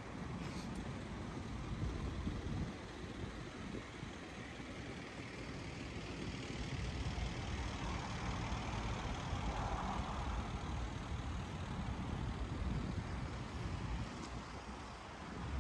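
City street traffic: cars and a truck running and idling along a busy street, a steady low rumble with a swell of passing-vehicle noise around the middle.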